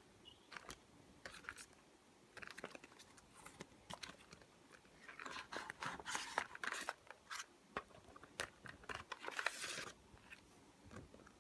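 Packaging being handled and opened: crinkling and crackling with scattered sharp clicks, heaviest about halfway through and again shortly before the end.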